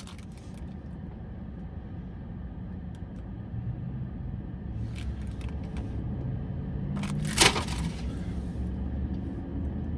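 Low, steady rumble inside a car cabin, with a few short rustles or knocks, the loudest about seven and a half seconds in.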